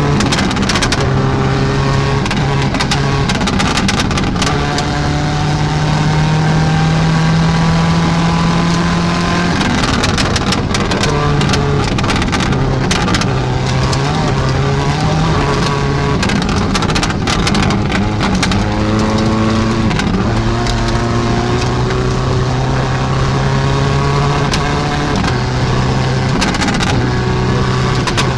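In-cabin sound of a 2007 Subaru WRX STI rally car's turbocharged 2.0-litre flat-four at full stage pace, fitted with anti-lag; the engine note climbs and drops again and again through gear changes. Sharp cracks and clicks sound throughout over the engine.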